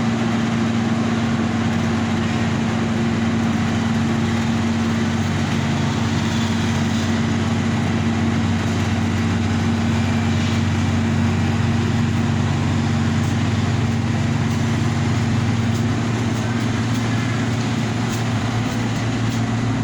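Heavy road-construction machine's engine running steadily at a constant speed, a low, even drone.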